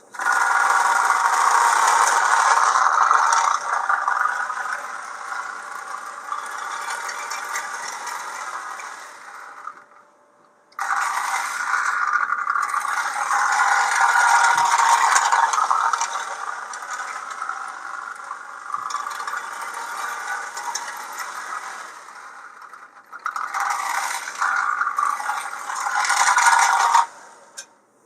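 Marx 1829 toy locomotive running on tinplate track: its electric motor whines while the wheels and tinplate body rattle and scrape along the rails. It starts abruptly, cuts out for about a second after ten seconds, runs again, dips briefly, and stops a second before the end.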